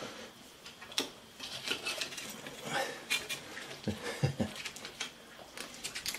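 Slotted metal spatula tapping and scraping around the rim of a small cast iron skillet, loosening a baked pie from the pan, with light clinks and two dull knocks about four seconds in.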